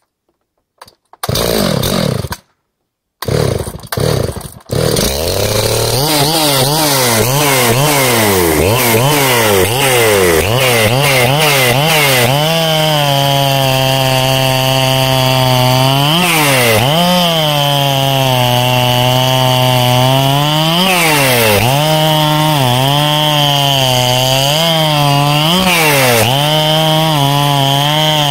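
Ported Makita 79cc two-stroke chainsaw being started: a few short bursts of running cut off by gaps, then it keeps running from about five seconds in. It revs up and down in quick swings, then cuts pine rounds at full throttle, its note holding high and steady with brief dips and rises between cuts.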